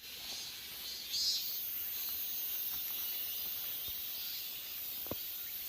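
Summer insects in the woods keep up a steady high-pitched buzzing, which swells briefly about a second in. A single light click comes near the end.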